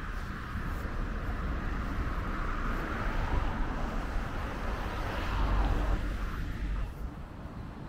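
A road vehicle passing by, its noise building to a peak about five to six seconds in and then falling away quickly.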